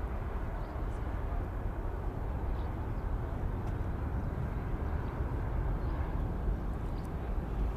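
Distant jet noise of an Airbus A340-600's four Rolls-Royce Trent 556 turbofans at takeoff thrust during the takeoff roll, a steady low rumble.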